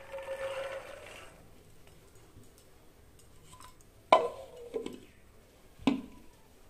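Pomegranate arils poured from a bowl patter into a steel blender jar for about a second. A few seconds later the plastic lid is fitted onto the jar with three sharp knocks, the first loudest.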